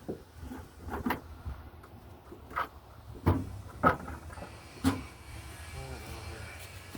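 Hand tools knocking and clattering as someone rummages for a pick, with about five separate sharp clacks spread over a few seconds.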